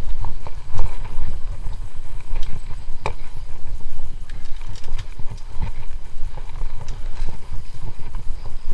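Mountain bike rolling over a bumpy dirt trail, with a steady low rumble of wind buffeting the microphone and irregular rattles and knocks from the bike.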